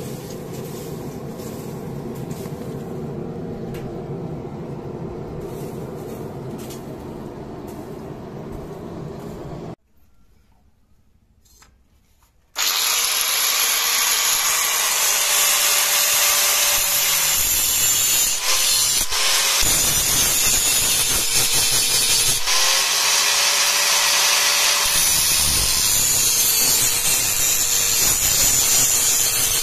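A steady low rumble, then after a short pause a handheld angle grinder starts and grinds a steel machete blade forged from cart-spring steel. It makes a loud, steady hissing grind, and its motor pitch sags and recovers several times as it is pressed into the blade.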